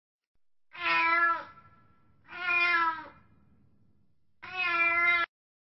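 Three drawn-out animal calls, each under a second long and spaced a second or two apart, the last cut off abruptly.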